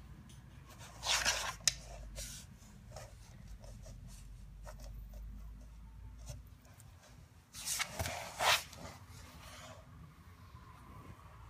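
A husky shifting about on the floor: soft rubbing and rustling of fur against the floor and the bed, with two louder scuffing bursts, one about a second in and one about eight seconds in, and light clicks between them.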